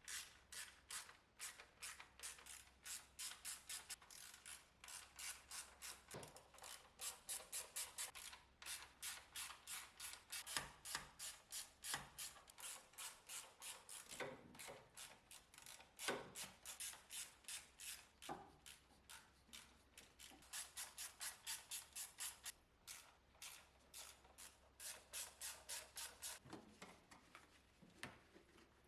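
Quiet, rapid back-and-forth hand scraping strokes, about two or three a second, with a few short pauses and a few duller knocks among them.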